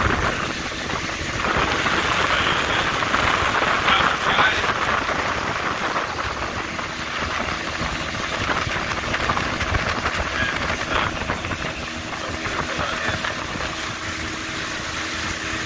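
Motorboat engine running steadily under way, with a continuous hiss of water rushing and splashing along the hull.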